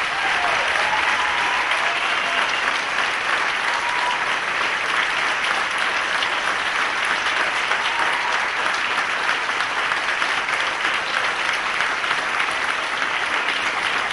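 A large audience applauding steadily, with a few faint whoops in the first two seconds.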